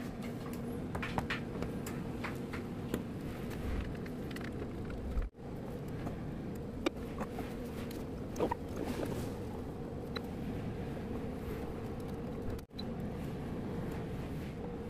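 Boral AF1300S 20-litre oven-type air fryer running at 200°C: its convection fan gives a steady hum, with a few faint clicks.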